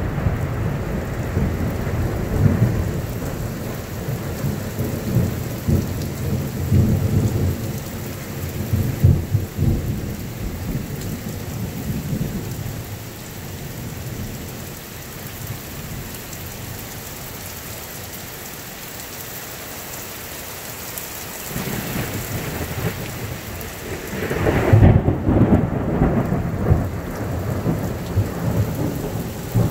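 Heavy rain falling steadily through a thunderstorm. A rolling rumble of thunder fades away over the first dozen seconds. About 25 seconds in, a sharp thunderclap breaks and rumbles on.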